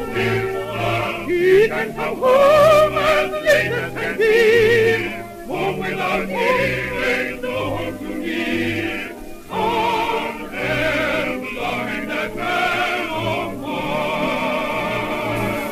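Light-opera singing with a wide vibrato over an orchestra, played from a 1930s 78 rpm record.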